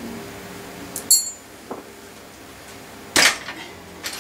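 A sharp metallic clink with a brief high ring about a second in, as a wheel nut is dropped into a ceramic bowl, then a small knock. About three seconds in comes a louder, short rattle as the rear wheel of the mountain bike is worked out of the frame.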